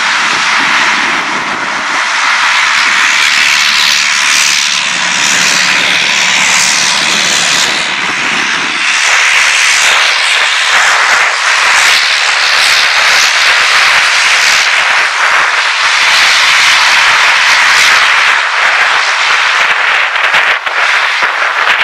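A Dornier 228-212's twin Honeywell TPE331 turboprop engines running loud and steady as the aircraft taxis, the lower part of the sound fading about nine seconds in.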